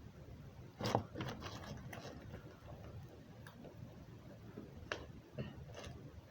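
Irregular soft clicks and pops of slime with tiny foam beads being squeezed and worked by hand, the loudest about a second in.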